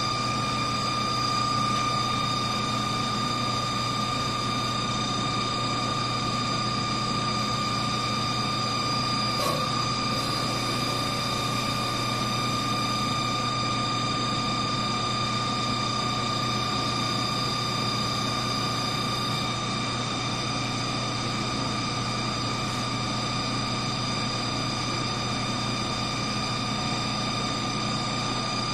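CNC wood lathe running with the wooden blank spinning: its inverter-driven three-phase motor gives a steady high whine over a low hum and a constant rushing noise. A single short click comes about nine seconds in.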